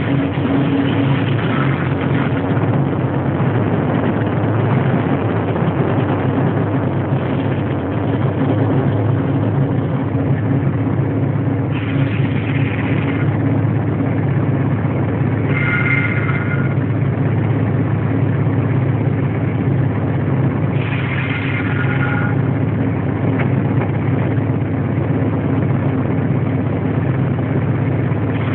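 Diesel locomotive running steadily with the train under way, heard from the cab, a constant low engine hum over running noise. A few brief high-pitched squeals come about 12, 16 and 21 seconds in.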